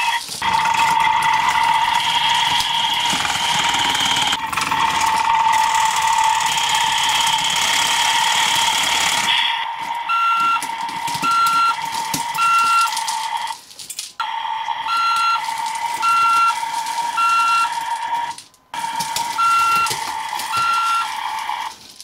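Electronic sound effects from a CAT Big Builder toy backhoe loader's small speaker: a steady buzzing engine tone, joined from about ten seconds in by short beeps about one a second, like a reversing alarm.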